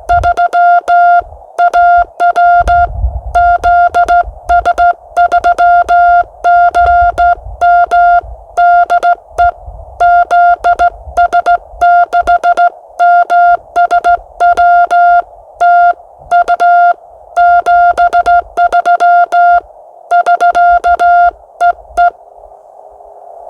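Morse code (CW) from an amateur radio: one strong, steady tone keyed on and off in rapid dots and dashes. It stops about 22 seconds in, leaving a faint hiss of receiver noise.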